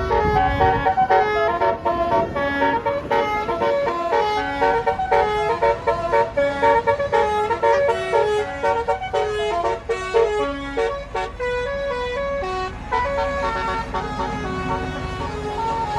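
Bus telolet horn (Basuri multi-tone horn) playing a quick tune of short stepped notes, thinning to fewer, longer held notes in the last few seconds. A bus engine runs low underneath at the start and again near the end.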